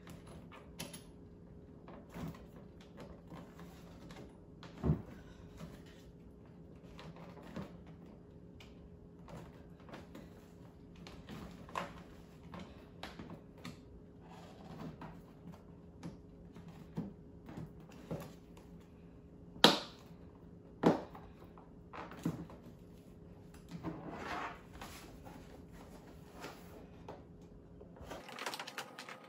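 Hard plastic clicking, creaking and knocking as LED headlight housings are pushed and worked into the cutouts of a golf cart's removed plastic front cowl. A few sharper knocks stand out, the loudest two close together a little past the middle, over a faint steady hum.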